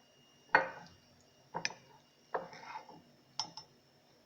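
Spoon clinking against a ceramic mug: about five sharp clinks, spread unevenly over a few seconds.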